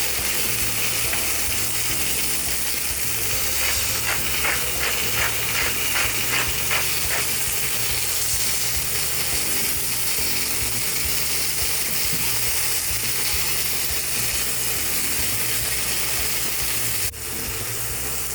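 Chicken and vegetables sizzling steadily in a very hot frying pan, with a short run of evenly spaced clicks from a seasoning grinder being turned a few seconds in. The sound drops abruptly near the end.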